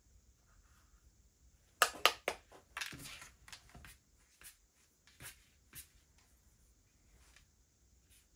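Sharp clicks and knocks of objects being handled. Two loud ones come close together about two seconds in, followed by a brief clatter and a few lighter scattered taps.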